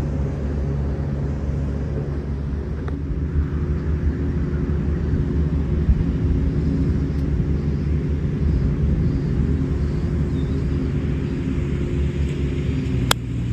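Steady low engine drone with a rumble on the microphone. About a second and a half before the end comes one sharp crack: a golf club striking the ball on a full swing.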